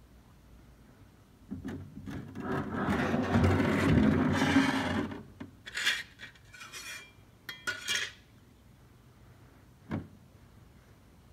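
Close rubbing and scraping for about four seconds, followed by a few light clatters and one knock near the end, made by someone moving around under the car right beside the microphone.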